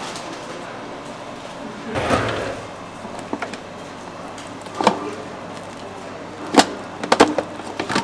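Counter work with a metal spatula and clear plastic tubs of cream cheese: a sliding swish about two seconds in, then a few sharp clacks of the spatula against the tubs, with a quick cluster near the end.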